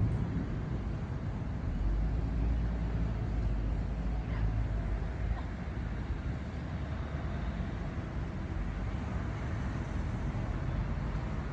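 Steady wind blowing through leaves, with a low rumble of wind on the microphone.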